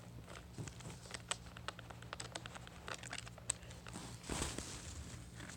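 Light scattered plastic clicks and scrapes of a plastic pry tool working keycaps loose on a semi-mechanical keyboard, with a brief rustle about four seconds in.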